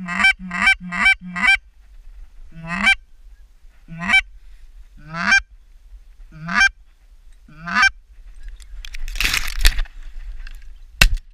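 Goose honks, each breaking sharply upward in pitch: five in quick succession, then about one every second and a half. Near the end a burst of rustling, then a single shotgun shot.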